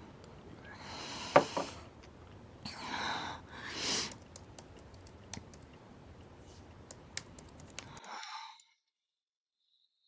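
Scattered taps and clicks of typing on a laptop keyboard. Before them come a sharp knock and a few breathy sounds. The sound cuts to silence near the end.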